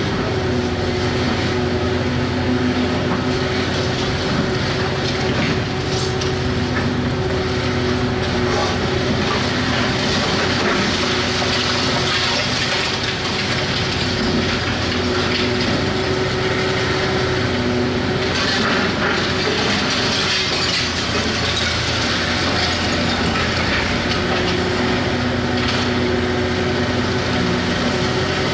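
Hitachi 670 LCH excavator's diesel engine running steadily under load, with scattered cracks and crunching as demolition debris is broken.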